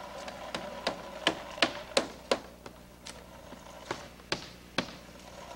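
Hammer blows on a shingle roof: a quick run of sharp knocks, about three a second, then a few slower, scattered ones.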